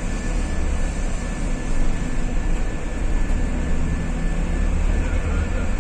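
Steady low rumble of an airport apron bus driving, heard from inside the passenger cabin, with a thin steady high whine running through it.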